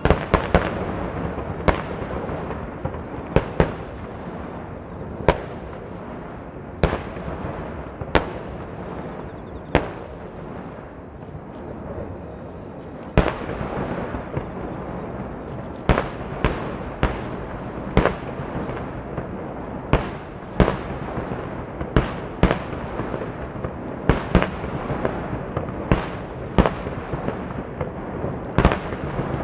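Water-surface star-mine fireworks bursting in half-domes on the lake: a sharp boom every second or two, coming quicker in the second half, over a continuous crackle and rumble of many shells.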